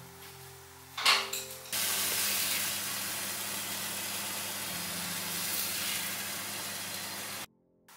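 Zucchini slices frying in oil in a nonstick pan, a steady sizzle that starts with a knock about a second in and cuts off suddenly near the end. A low steady hum sits under the first second or so.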